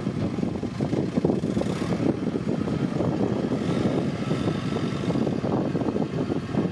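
Kubota farm tractor's diesel engine running steadily while it drives across loose dirt, pushing soil with its front dozer blade; a dense low, rapid chugging with no break.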